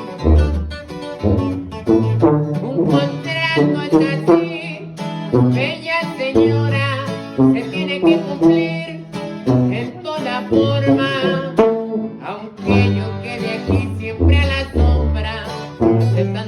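Mexican regional band music: plucked strings play over repeated low bass notes in a steady rhythm.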